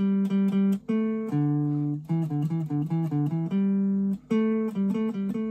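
Fender Telecaster Thinline electric guitar playing a single-note melody phrase, notes picked one at a time, some held for about a second, with two short breaks in the line.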